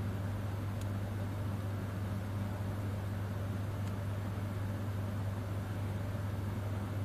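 A steady low machine hum with an even hiss behind it, unchanging throughout; two faint short ticks, about a second in and about four seconds in.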